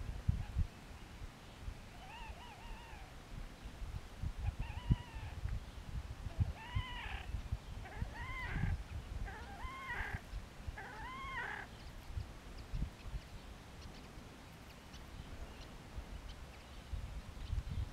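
A Slavonian (horned) grebe calling: a series of about six drawn-out calls, each rising and then falling in pitch, one every second or two. The calls stop about twelve seconds in.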